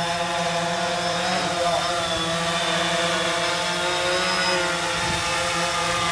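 Quadcopter drone's motors and propellers whining steadily as it hovers low and then climbs away, the pitch wavering slightly.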